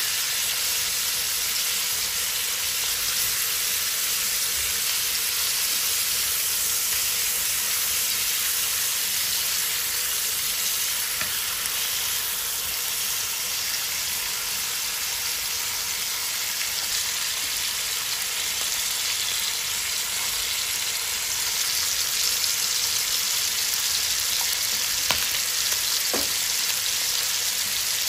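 Chicken thigh pieces sizzling steadily as they fry in a hot wok, with a spatula turning them at the start. A couple of light ticks near the end as whole black peppercorns drop into the pan.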